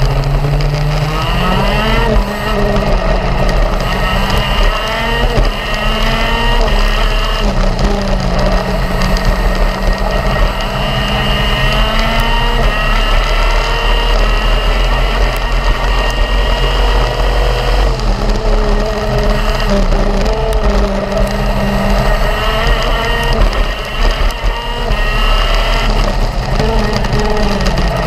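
Racing kart engine heard on board at full speed: the revs climb, hold high, then drop off when the throttle is lifted, three or four times over the stretch.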